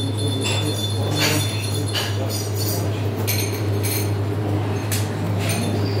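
Glasses and crockery clinking now and then, sharp light clinks at irregular moments, over a steady low hum.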